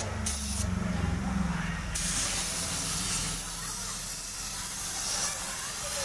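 Compressed-air spray gun hissing steadily as it sprays paint, a little louder from about two seconds in.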